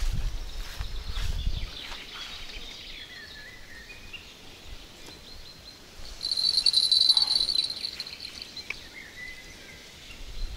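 River-bank ambience with an insect's loud, high, steady buzzing trill starting about six seconds in and lasting about two seconds, faint bird chirps here and there, and a low rumble in the first two seconds.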